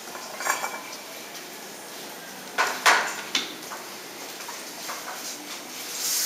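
A few light clinks and knocks of a brush and tools against ceramic paint dishes and pottery during hand painting of Talavera ware, the loudest pair about three seconds in.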